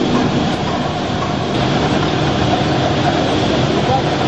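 Steady, loud machinery rumble of a working forge shop around a large counterblow hammer, with no distinct hammer blows.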